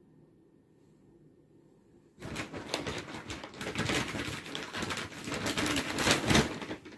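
Brown paper bag crinkling and rustling as it is pressed down and shifted with a cat moving inside, starting about two seconds in as a dense run of crackles.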